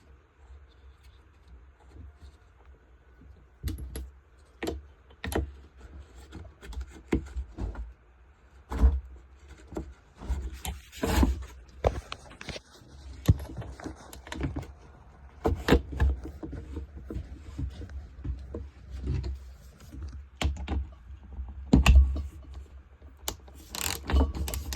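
Irregular clicks, taps and knocks of hand tools and metal parts as a spark plug is threaded back into a small two-stroke engine's cylinder head and snugged down, with a few short scrapes among them.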